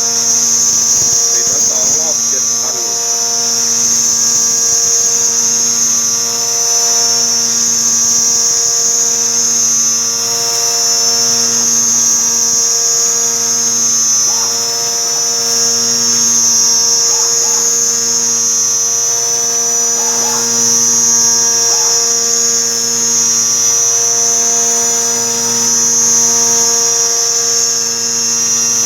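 A Hurco CNC machining centre high-speed milling 5083 aluminium with a 10 mm two-flute carbide end mill at 7000 rpm: a steady, loud cutting hum with a high-pitched hiss over it. It swells gently every couple of seconds as the tool takes a deep 22 mm axial cut with a thin 1 mm side step at a fast feed.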